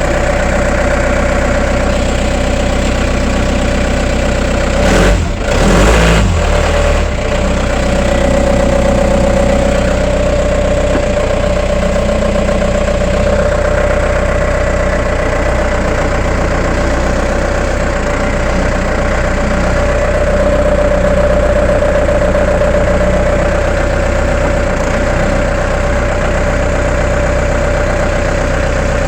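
Case 1845 skid steer's diesel engine idling steadily while warming up, with a brief louder rumble about five seconds in.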